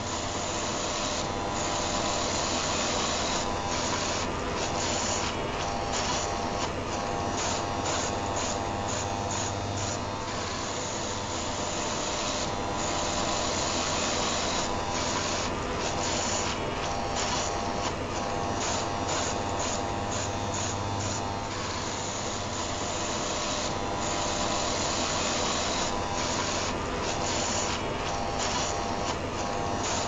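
Philips ComfortCut electric rotary shaver running continuously with a steady buzz and low hum, layered with the steady whir of an electric heater.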